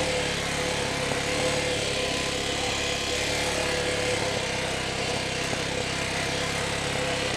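TDR 300 Chinese dirt bike's engine running steadily as the bike is ridden along a dirt single track.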